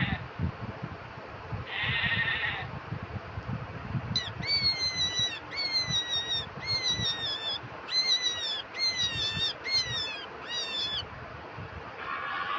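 A sheep bleating twice, then a quick series of about nine short, high squeaking calls, each falling in pitch, given as a rabbit's sound.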